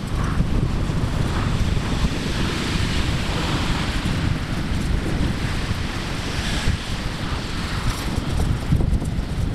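Wind buffeting the microphone while riding a bicycle, a steady low rumble with a rushing hiss, along with the tyres rolling on an asphalt cycle path.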